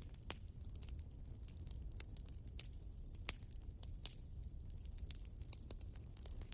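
Logs burning in a fireplace, crackling with frequent irregular sharp pops over a low steady rumble from the fire.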